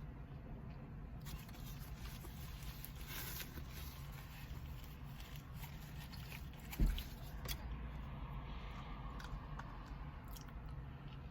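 Faint close eating sounds: a caramel sundae with crushed almonds being chewed, with small spoon clicks, over a steady low rumble. A short thump about seven seconds in is the loudest sound.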